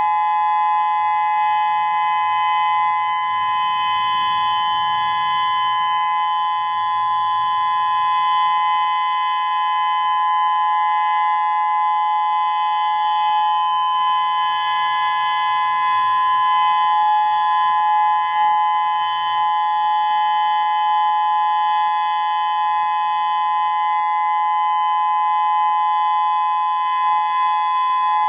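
Federal Signal Modulator 6024 electronic warning siren sounding a steady tone, a chord of two pitches held without rising or falling, during a routine siren test.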